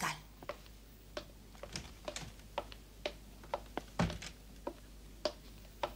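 Footsteps on a hard floor, light clicks about two a second, with one heavier knock about four seconds in.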